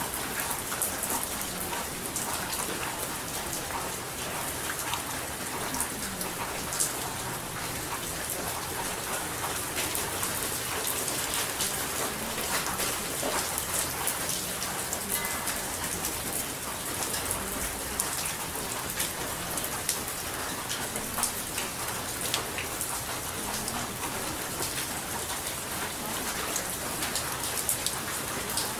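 Steady rain falling, a constant hiss with many separate drops ticking through it.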